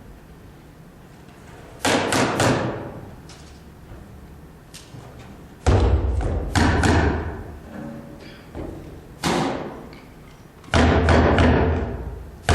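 Percussion instruments struck in separate bursts with pauses between them: a quick run of three or four hits about two seconds in, then deep, booming hits near the middle and again near the end.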